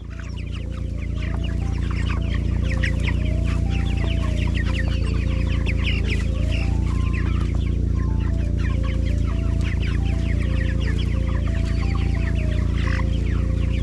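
A flock of chickens clucking and peeping continuously as they forage, many short overlapping calls, over a steady low rumble.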